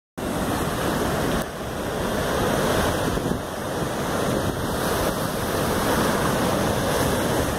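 Heavy surf breaking and washing over rocks, a steady loud rush of water, with wind buffeting the microphone.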